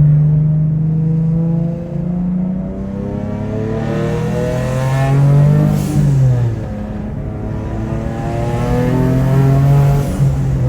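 Boosted Nissan 370Z Nismo's V6 pulling hard under boost, its pitch climbing, dropping sharply about six seconds in, then climbing again. There is a brief hiss each time the revs fall.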